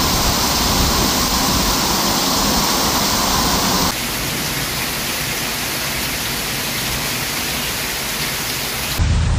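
Heavy rain pouring down onto flooded pavement: a steady hiss of falling and running water. About four seconds in it cuts to a similar, slightly quieter downpour.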